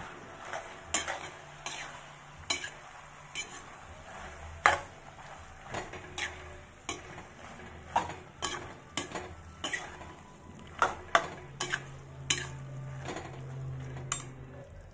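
Metal spatula scraping and knocking against a metal karahi while stirring a frying mushroom and potato curry, with a low sizzle underneath. The strikes come irregularly, about one or two a second, and grow busier in the second half.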